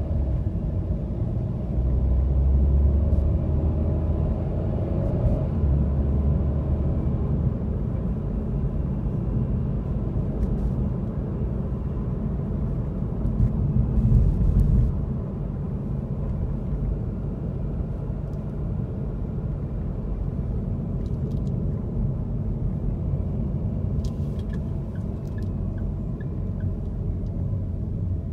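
Steady low rumble of a car's engine and tyres heard from inside the cabin while driving, swelling louder for a moment about halfway through.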